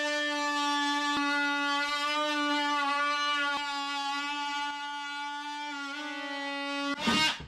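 Cordless DeWalt oscillating multi-tool cutting into the fibreglass bottom of a boat's engine oil sump: a steady high-pitched buzz that drops slightly in pitch and level about six seconds in, then stops just before the end.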